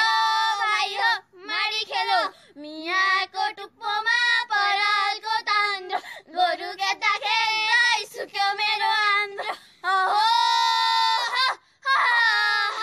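A high female voice singing unaccompanied: a Nepali threshing folk song, sung in phrases of long, wavering held notes with short breaks between them.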